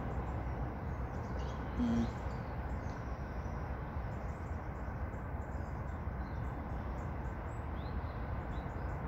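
Steady outdoor background noise with a low rumble, one short low hoot-like note about two seconds in, and a few faint high bird chirps near the end.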